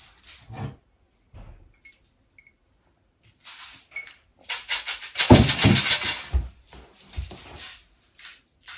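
Handling noise from fidget toys: a few small clicks and taps, then a loud crackling rustle lasting about two seconds, starting around halfway through.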